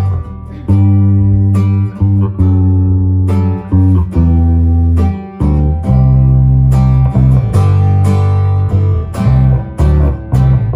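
Acoustic guitar strummed and picked over an electric bass guitar holding long low notes, an instrumental passage with no singing.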